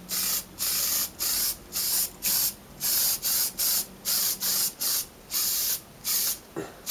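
Aerosol can of Permatex Copper Spray-A-Gasket sealant hissing in short, even bursts, about two a second, as a copper head gasket is coated.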